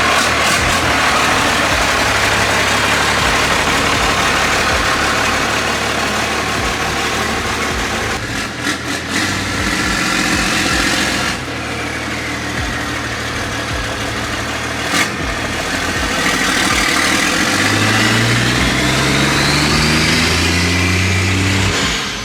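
1993 first-gen Cummins 5.9-litre 12-valve turbo diesel running steadily, then climbing in pitch over the last five seconds as it revs or pulls away, with a high whistle rising along with it.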